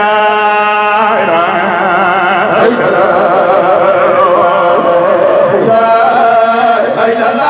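A man chanting an Islamic zikr (dhikr) through a microphone. He holds a long steady note for about a second, then moves into a wavering, ornamented melody with vibrato.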